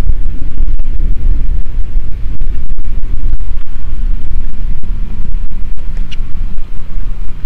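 Fishing boat running across open water, heard mostly as a loud, steady wind rumble on the microphone.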